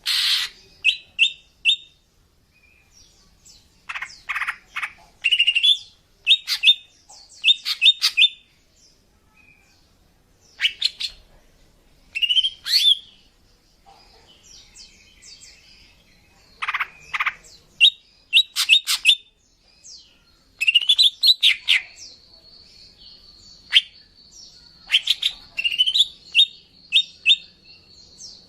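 Female green leafbird (cucak ijo) calling: bursts of quick chirps and short rising whistled notes, repeated every second or two, with a thin held whistle running under the calls in the last several seconds.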